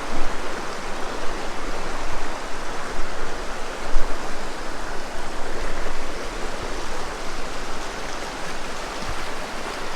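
A river rushing over rocks: a steady wash of flowing water.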